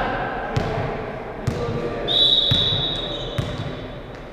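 Indoor volleyball play echoing in a large sports hall: several sharp ball hits and knocks, with players' voices behind. About two seconds in, a high whistle blast, most likely the referee's whistle, rings out and fades.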